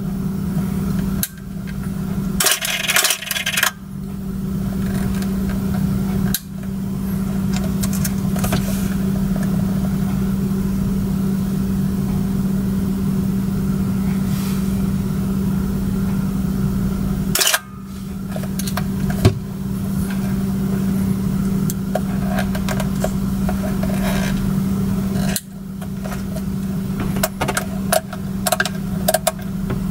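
Nikon F4S film SLR's shutter and built-in motor drive firing in long continuous bursts, a steady mechanical run that stops and restarts a few times, with some sharper clicks of the camera's buttons.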